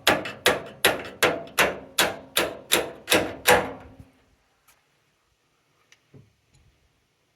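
A tool used as a hammer striking steel on a tractor loader: about ten steady blows, roughly three a second, each ringing briefly, stopping a little over three and a half seconds in. The blows are knocking a part loose.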